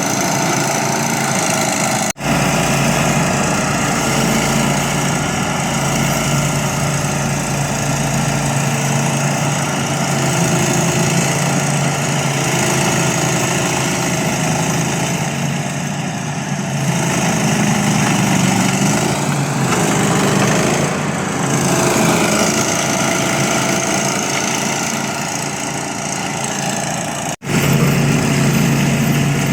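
Remote-control lawn mower's engine running steadily, its pitch wavering down and up for a few seconds around the middle. The sound drops out for an instant twice, about two seconds in and near the end.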